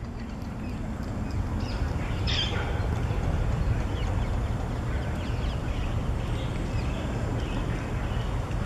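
Birds calling here and there over a steady low rumble, with one louder call about two seconds in.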